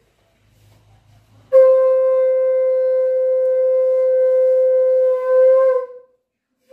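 Conch shell (shankha) blown in one long, loud blast, starting about a second and a half in, holding a single steady pitch, then wavering briefly and dying away near the end.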